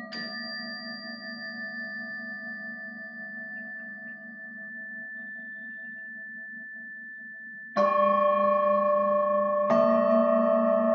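Struck metal sound-healing instruments ringing. A strike just at the start sounds several tones together that slowly waver and fade, then two louder strikes near the end start new long-ringing chords.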